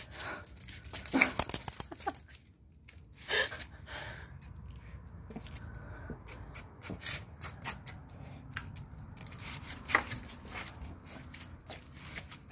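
A small dog making a few short vocal sounds, the loudest about a second in, around three and a half seconds in and near ten seconds, with scattered faint clicks in between.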